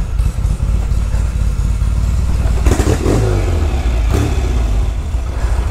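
1975 Norton Commando's parallel-twin engine, fitted with a single Amal carburettor, idling steadily, with brief rises in engine speed about three seconds in and again around four seconds.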